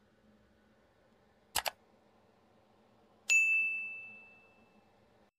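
Subscribe-button animation sound effect: a quick double mouse click, then a bell ding that rings out and fades over about a second and a half.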